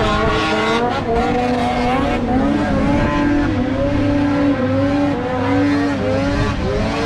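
Racing engines revving hard as several craft speed across a lake throwing spray. Their overlapping pitches rise and fall as they pass.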